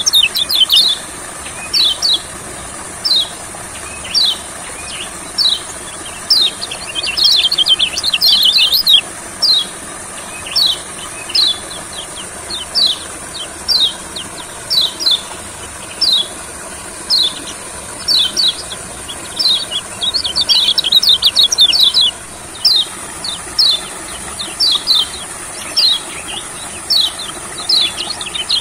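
Kecial kuning (a white-eye) singing in full voice: short, sharp, downward-sweeping chirps repeated about once a second, breaking into fast chattering runs about a quarter of the way in, again about two-thirds in, and at the end. A steady high hiss runs underneath.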